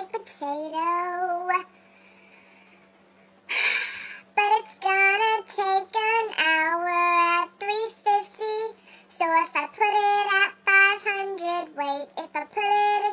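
A high-pitched voice singing a made-up song in sung phrases, with a short pause and then a loud breathy burst about three and a half seconds in. A faint steady hum runs underneath.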